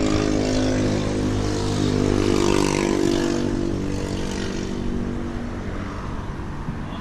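A motor vehicle driving past: a steady engine note with road hiss that swells to its loudest about two and a half seconds in, then fades away.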